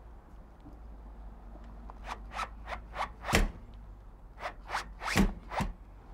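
Cordless drill boring 1/8-inch pilot holes through the storm door's metal hinge rail, run in short quick bursts. It comes as a string of about six zips starting about two seconds in, the loudest near the middle, then four more a second later.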